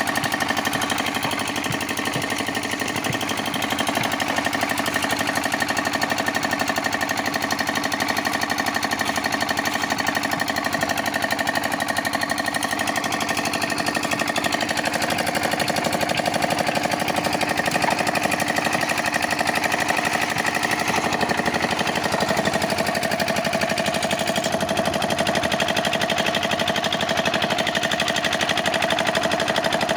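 Concrete mixer running steadily with a rapid, even mechanical chatter.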